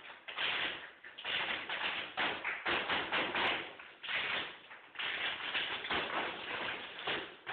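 Tap shoes of a group of dancers striking a wooden studio floor in rapid flurries of taps, in phrases broken by several short pauses.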